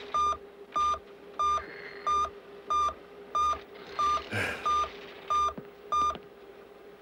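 Ten short electronic beeps at one pitch from a computer monitoring console, evenly repeating about one and a half times a second over a steady low hum: an alert signalling modem activity detected on the line.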